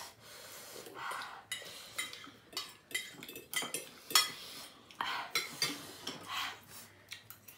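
Forks scraping and clinking on ceramic plates, and chopsticks tapping in a bowl, as noodles are eaten: a string of short, irregular clinks and scrapes.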